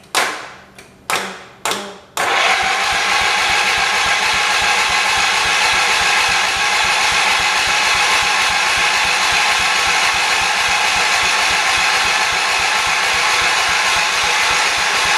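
A few sharp clunks, then about two seconds in the 1978 John Deere 208's starter begins cranking its single-cylinder Kohler engine, a steady, even churn that goes on without the engine catching.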